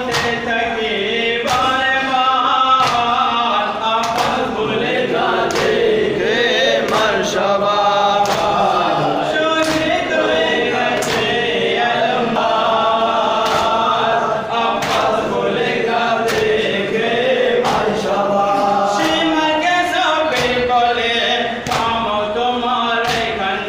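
A group of men chanting a nauha, a Shia mourning lament, in unison. Sharp chest-beating slaps (matam) land in a slow steady beat, about one every second and a half.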